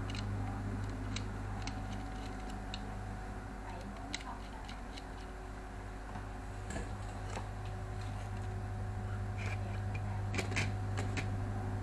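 Scattered light clicks and taps of plastic being handled as a power plug is fitted into a camera power strip's outlets, with a cluster of clicks near the end, over a steady low hum.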